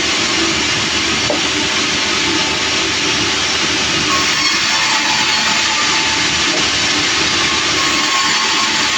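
Sawmill saw running through a large log, a loud steady noise.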